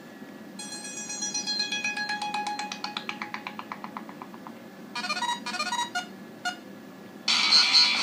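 Sony Ericsson Xperia X10 Mini playing previews of its built-in ringtones through its small speaker as each is picked from the list. A quick run of notes falls in pitch in the first few seconds. A short phrase of notes follows a couple of seconds later, and a louder, busier tone starts near the end.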